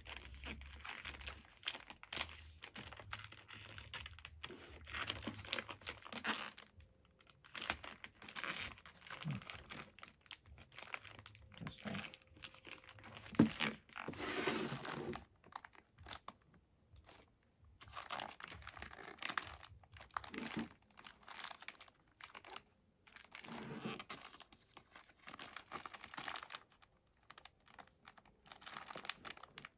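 Clear plastic bag crinkling and rustling in irregular bursts as its sealed edge is pulled open and the bag is handled, with a sharp crackle about thirteen seconds in.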